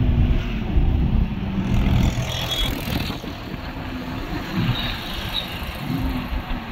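Engine and road noise inside a moving vehicle's cabin: a steady low rumble with a droning engine tone, easing off a little about halfway through.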